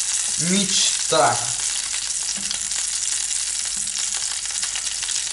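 Pelmeni frying in hot oil in a frying pan: a steady sizzle with fine crackling, while two wooden spatulas stir and push the dumplings around the pan.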